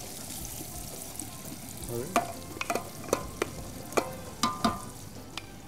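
Chopped onions sizzling in hot oil in a large aluminium cooking pot. From about two seconds in, a wooden spoon knocks about ten times against the metal pot and plate, each knock ringing briefly.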